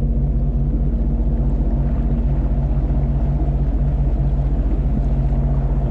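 Sea-Doo jet ski engine running steadily at low speed, an even low drone.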